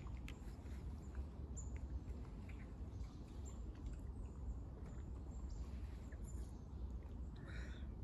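Woodland ambience: a steady low rumble with faint, scattered bird chirps and a short bird call about seven and a half seconds in.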